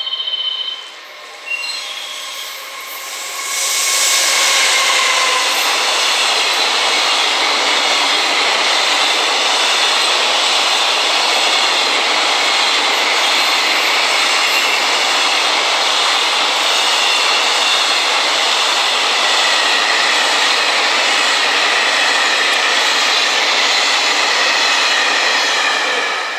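Freight train with an EF210 electric locomotive and a long rake of container wagons passing at speed. The sound builds over a couple of seconds as the locomotive arrives, then holds as a steady, loud rush of steel wheels on rail with high ringing tones over it. It falls away near the end as the last wagons go by.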